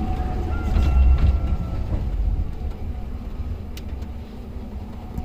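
A vehicle engine running with a deep rumble and a steady hum, a thin whine in the first couple of seconds, and growing quieter toward the end.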